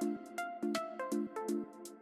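Background music: an upbeat electronic track with a steady beat of about two hits a second and plucked melody notes over held chords.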